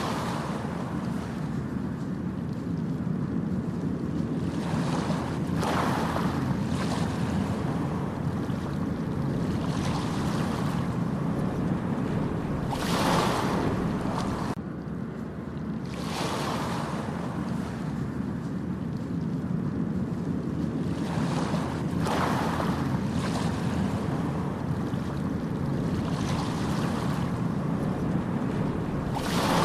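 Ocean waves breaking and washing up the beach: a hissing surge of surf every few seconds over a steady low rumble.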